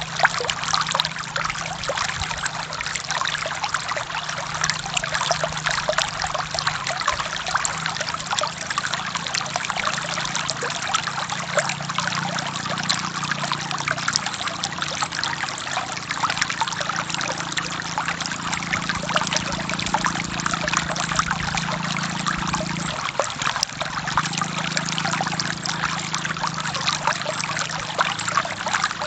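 Forest stream running over rocks: a steady rush with a fine babbling texture, and a deeper low rush beneath it that eases for a moment about three-quarters of the way through.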